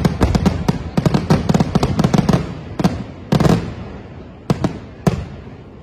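Aerial fireworks finale: a rapid barrage of shell bursts and crackle for about two seconds. It thins to one heavier boom with a long rolling tail, then a few scattered bangs fading away.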